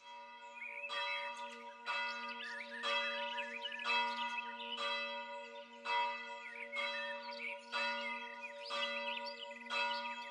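Church bell ringing, struck about once a second, each stroke leaving a lingering hum under the next.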